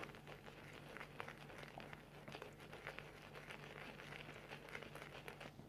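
Synthetic shaving brush being worked on shaving soap to load it and build lather: a faint, continuous wet crackling and squishing of bubbling lather, which dies away near the end.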